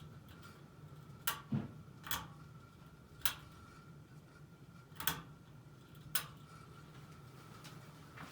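SMC-made Hampton Bay Landmark (DC-42) ceiling fan running with a steady low hum and a faint steady whine, while six sharp, irregular clicks or ticks sound over it.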